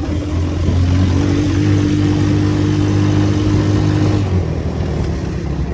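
Small engine of a home-built buggy (DF200GKV) running under way: it speeds up about a second in, holds a steady pitch, then drops back about four seconds in as the throttle eases.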